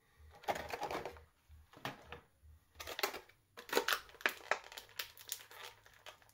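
Small clear plastic accessory bag crinkling as it is handled and opened, in irregular bursts of crackling that come thickest after the halfway point.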